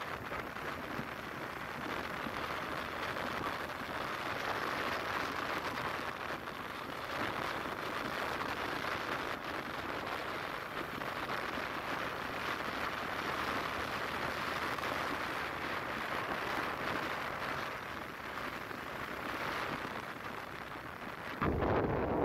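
Steady rushing of wind and road noise from a moving vehicle. Near the end a louder, deeper buffeting of wind on the microphone starts suddenly.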